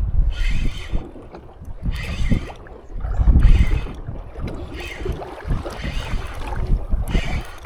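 Strong wind buffeting the microphone in uneven low rumbling gusts, with water splashing against a small boat's hull in short hissing bursts every second or so.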